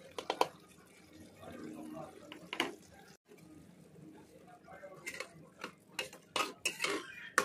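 Steel spoon stirring minced meat in an aluminium pressure cooker, clinking and scraping against the pot. There are a few sharp clacks just after the start and a busier run of clinks in the last couple of seconds.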